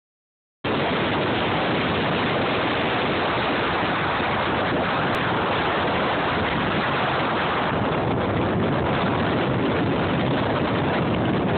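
Wind buffeting the microphone: a steady, loud rushing noise that starts abruptly about half a second in.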